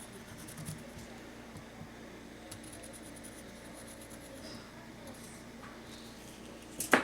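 Faint scratching and light taps of paint being brushed onto a plate as legs are painted on a clay bird, over a low steady room hum.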